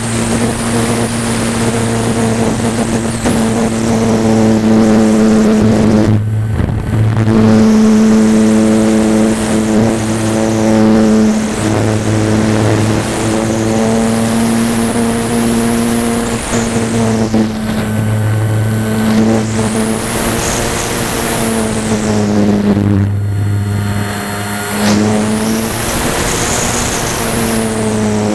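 Electric motor and propeller of a Phoenix 2000 RC motor glider, heard from on board, running under power and changing pitch with the throttle, with two brief dips. A rush of air swells and fades several times as the plane dives and banks.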